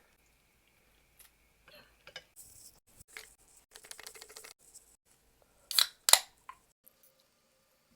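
Close-up eating sounds: scattered small clicks and crisp rustling, with two loud sharp clicks a moment apart about six seconds in.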